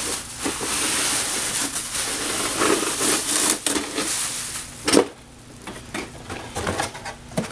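Plastic shrink-wrap crinkling and tearing as it is pulled off a sealed cardboard cosmetics box. A sharp knock comes about five seconds in, then quieter rustling and taps as the box is handled.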